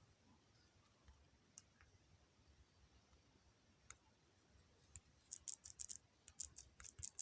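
Faint taps and clicks on a phone touchscreen: a couple of single taps, then a quick run of taps in the last two seconds.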